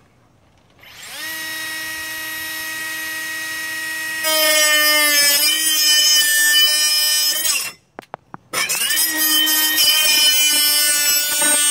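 Ridgid 18V subcompact multi-material saw: the motor spins up with a rising whine and runs free for about three seconds, then gets much louder and harsher as the blade plunges into the material and cuts. It stops shortly before eight seconds in, then starts again and cuts loudly for about three seconds more.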